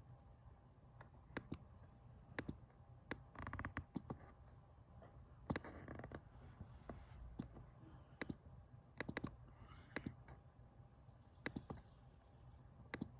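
Scattered sharp clicks from operating a laptop, several in quick pairs like double-clicks, with a brief rustle about three and a half seconds in, over a faint low hum.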